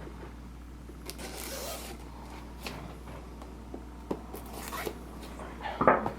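Cardboard box packaging being handled and opened: a sliding, rustling swish in the first two seconds, scattered light clicks and knocks, and a louder knock near the end.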